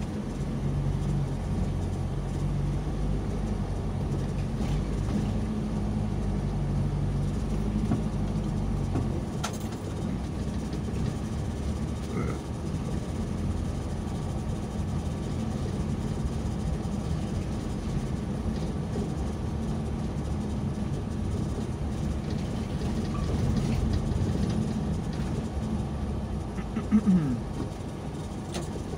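Vehicle engine running with road noise, heard from inside the cabin while driving along a street. There is a brief louder sound near the end.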